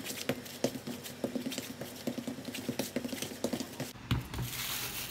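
Fingertips patting and pressing tortilla dough flat on a plastic sheet over a wooden board: many rapid, light pats. About four seconds in there is a thump, followed by a soft, steady rustle.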